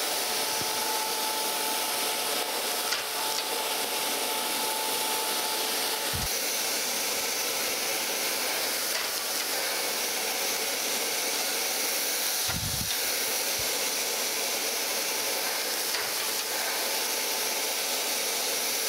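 Surface grinder's wheel grinding the top face of a straight edge in a light pass of about half a thousandth, with spray-mist coolant: a steady even hiss, with a couple of short dull knocks about six and twelve seconds in.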